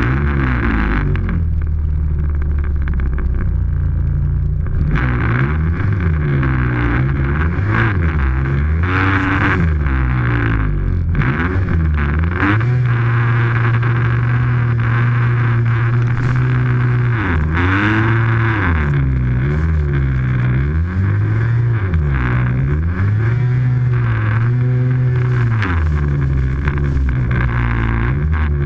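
Snowmobile engine revving up and down over and over as the sled is ridden through deep powder, with a few stretches held at steady throttle. A steady hiss runs beneath the engine.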